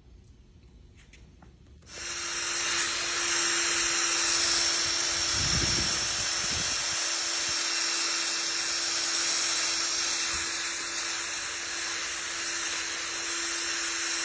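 A small handheld power tool starts suddenly about two seconds in and runs steadily, with a bright hiss over a constant hum, while polishing carbon gunk off engine valves. There is a brief low thump about six seconds in.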